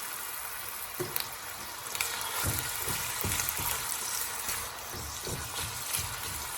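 Sliced onions frying in a pan of hot oil, a steady sizzle, with a few soft knocks in the middle and near the end.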